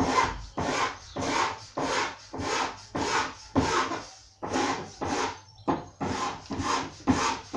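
Flat steel file rasping along the laminate edging strip of a kitchen worktop, about two short strokes a second, each one filed in and then lifted: the last of the edging is being trimmed flush with the worktop surface.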